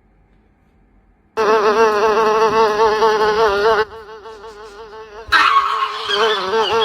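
A fly-like buzzing drone on one wavering pitch. It starts suddenly about a second and a half in, drops quieter partway through, comes back louder with added hiss, and stops suddenly at the end.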